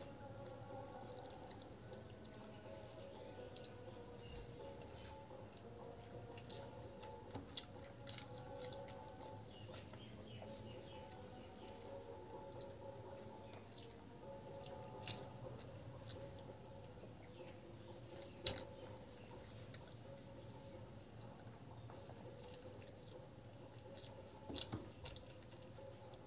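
Close-up eating sounds: fingers squishing and mixing rice on a plastic plate, and wet chewing and lip smacks, heard as a scatter of small clicks with one sharper click a little past halfway.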